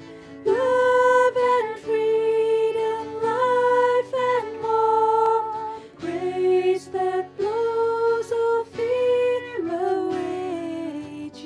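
A worship team singing a slow song, the voices holding long notes that step up and down between phrases, over a low, sustained instrumental accompaniment.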